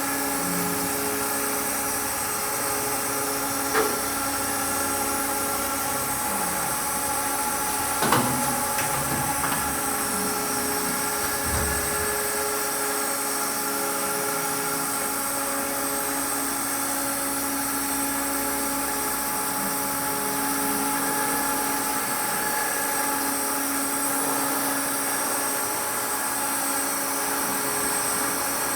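Triad SSR CNC stair router running: a steady machine whine and hum of several constant tones, with two short knocks about 4 and 8 seconds in.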